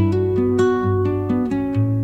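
Background music: a gentle instrumental passage of plucked acoustic guitar, with notes picked one after another.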